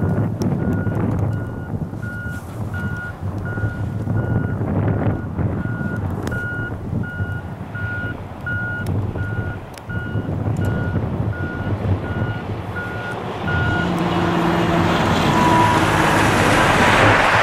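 Railway level-crossing warning bell beeping rapidly and evenly, about three beeps a second, over a low wind-blown rumble. About 14 s in the beeping gives way to steady low tones and a rising loud rush of noise as the CN freight train approaches.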